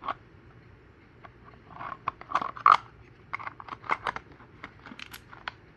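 Small camping gear being handled and taken out of a box: a string of light clicks and knocks with a few brief scrapes, busiest from about two seconds in.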